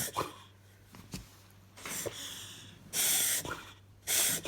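Beagle reverse sneezing: a run of about five loud, noisy snorting breaths pulled in through the nose, spaced roughly a second apart, the strongest about three and four seconds in.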